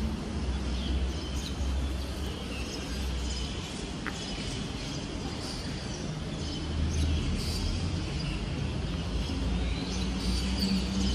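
Outdoor background sound: a steady low rumble with scattered short bird chirps.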